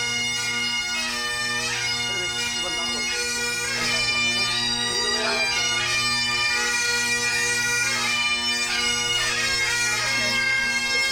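Highland bagpipes playing a tune, the chanter melody moving over steady, unbroken drones.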